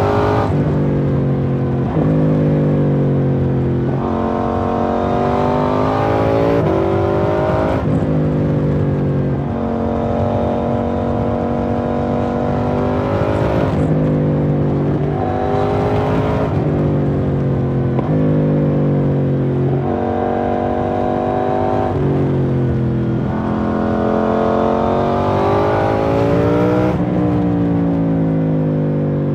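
KTM 790 Duke's parallel-twin engine through an IXRACE MK2 aftermarket exhaust, pulling up through the gears: the pitch rises in each gear and drops back at every shift, with a few stretches of steady cruising in between.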